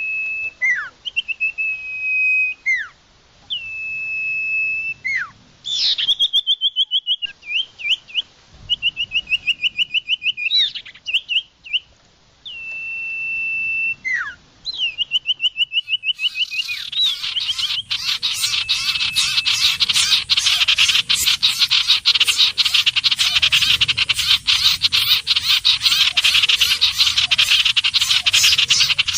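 Iora song: clear whistled notes, each held level and then dropping sharply at the end, alternating with quick runs of rapid repeated notes. A little past halfway it gives way to a dense, continuous chattering chorus of fast notes.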